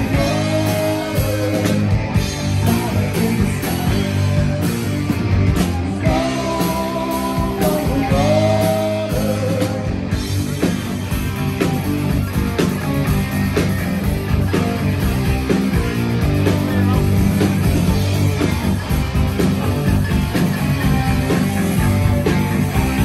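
Live rock band playing with electric guitars, bass, drums and keyboards; a lead line of bending, sliding notes stands out over roughly the first nine seconds.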